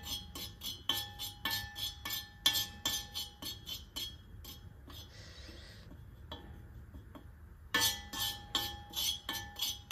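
Steel spoon scraping and clinking against a metal tawa as turmeric powder is dry-roasted, about three strokes a second. The strokes pause for a few seconds past the middle, then start again.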